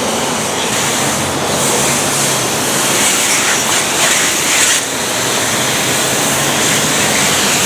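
Water spraying steadily onto toy trucks in a continuous rushing hiss.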